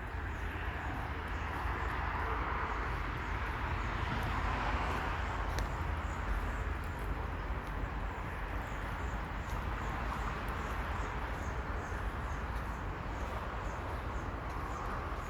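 Outdoor ambience: a steady rushing hum that swells and fades, with a low rumble under it. From about six seconds in, a faint high chirp repeats about twice a second.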